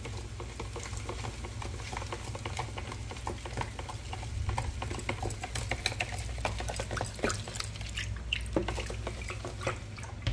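A metal spoon stirring salt, sugar and vinegar into water in a plastic jug to make pickling brine: irregular light ticks and scrapes of the spoon against the jug, over a steady low hum.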